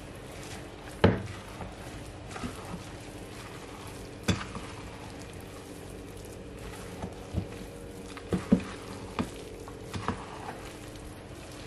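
Wooden spoon stirring stiff cookie dough in a glass bowl: soft squishing scrapes with irregular sharp knocks of the spoon against the glass. The loudest knock comes about a second in, and a cluster of knocks falls in the second half.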